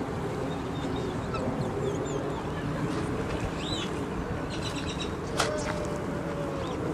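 Outdoor ambience: a steady low rushing noise with birds chirping now and then, and a single sharp click about five seconds in.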